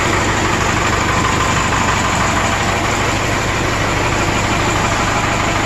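Cummins 4BT 3.9 L turbo diesel running steadily, with an even low beat. The engine has worn piston rings and low compression, blowing by and low on power, with cylinder 4 running coldest.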